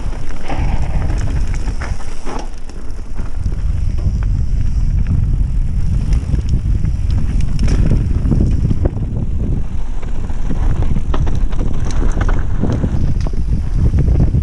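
Mountain bike descending a dirt singletrack: steady wind rumble on the microphone and tyre noise on the dirt, with frequent clicks and rattles from the bike over bumps.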